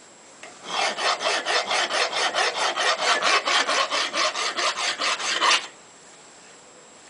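Hand file rasping along the edge of a steel railroad-track anvil in quick short strokes, about five or six a second, to take off burrs. The filing runs for about five seconds, then stops.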